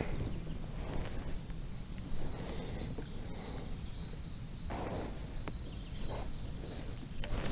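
Outdoor lakeside ambience: a steady low wind rumble, with a small bird giving a long series of short high chirps, about two or three a second, starting about a second and a half in.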